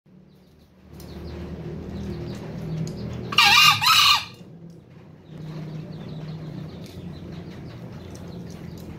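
A male green junglefowl gives a single short, loud crow in two parts about three and a half seconds in. A steady low hum runs underneath.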